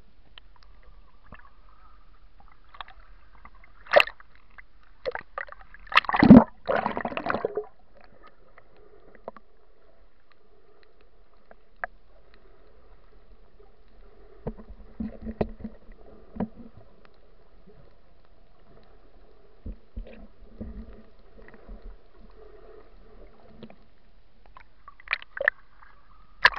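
Underwater sound picked up by a snorkeler's camera: a faint steady drone with irregular muffled rushes and knocks of water and movement, the loudest about six seconds in. Near the end come splashes as the camera breaks the surface.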